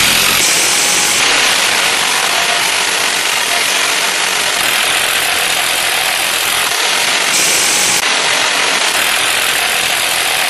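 Echo 1 airsoft minigun firing one long, continuous, steady burst.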